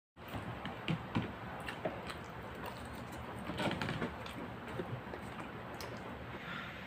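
Scattered small crackles and clicks of food being handled by hand: the plastic wrap around a serving of rice and a cardboard takeout box, with grilled chicken being picked apart, over a steady hiss.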